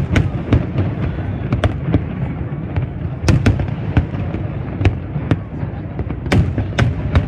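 Fireworks display: aerial shells bursting in quick, irregular succession, about two sharp bangs a second over a continuous low rumble.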